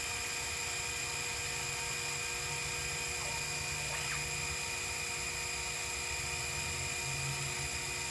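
Sherline CNC mill running: a steady motor whine made of several high steady tones over a lower hum that swells and fades.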